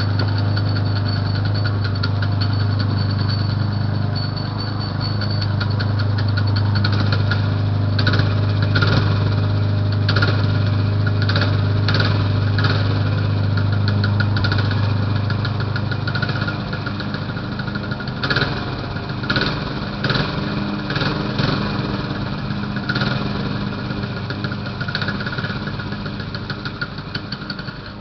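Briggs & Stratton 3 hp single-cylinder engine on a 1970s Lil Indian minibike running steadily. After about sixteen seconds it turns uneven, with repeated short sharp bursts.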